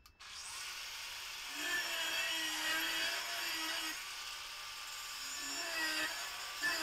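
Handheld angle grinder grinding a spring-steel (leaf spring) kukri blade, starting a fraction of a second in. It makes a steady whine that wavers a little in pitch, over a hiss of the disc on the steel.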